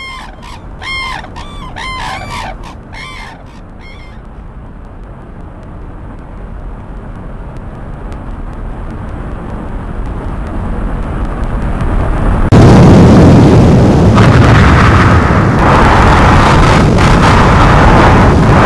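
Disaster-film sound effects: a flock of birds calling over and over for the first few seconds, then a low rumble that swells steadily. About two-thirds of the way in it jumps abruptly to a loud, continuous rush of a giant wave crashing in.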